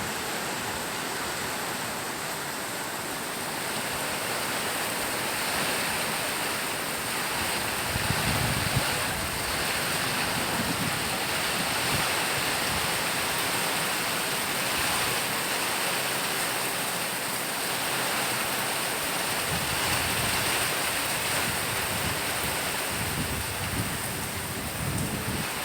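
Heavy rain falling steadily, a dense even hiss, with gusts of strong wind swelling at the low end now and then, notably about eight seconds in and again around twenty seconds.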